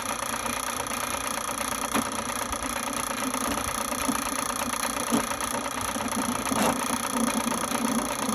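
Electric drain-cleaning machine running steadily, its cable turning against a blockage in the sewer line that won't clear, which the men suspect is tree roots.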